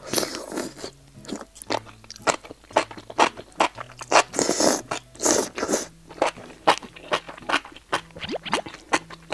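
Close-miked eating of enoki mushrooms in spicy broth. There is a long wet slurp at the start and another about four seconds in, with crisp crunchy chewing clicks between and after. Soft background music plays underneath.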